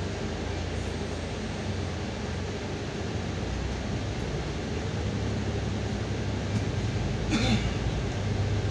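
Golden Dragon XML6125 city bus engine heard from inside the cabin, idling at a low steady hum, then growing louder about halfway through as the bus pulls away. A short burst of noise about seven seconds in.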